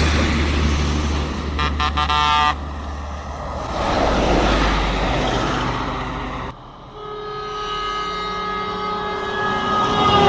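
Passing bus with engine and road noise and a short blast of its multi-tone horn about two seconds in. After a sudden break, a long steady multi-tone horn sounds from about seven seconds in, its pitch starting to drop near the end.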